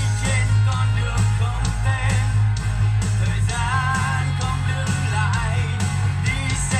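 A song with a sung vocal line, guitar, drums and a heavy, steady bass, played back through a B&O Beoplay M5 wireless speaker.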